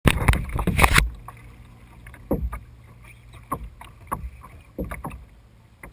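Small splashes of water around a kayak, coming about once a second, after a loud rumble of wind or handling noise on the microphone in the first second.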